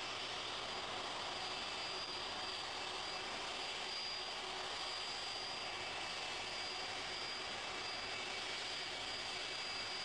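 Boeing 747 jet engines running at taxi power as the airliner rolls slowly forward: a steady high whine over an even rushing hiss.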